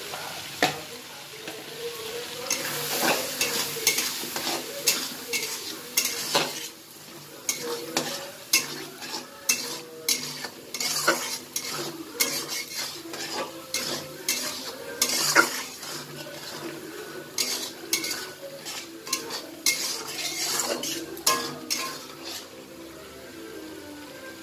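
Metal spatula scraping and knocking against a metal kadai in irregular strokes as a thick spiced masala of potatoes and boiled eggs is stirred. Under the strokes the masala sizzles in the oil. This is the kosha stage, the spices being fried down.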